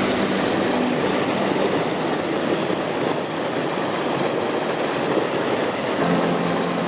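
Steady rushing of a small mountain stream's whitewater cascading over rocks into a pool.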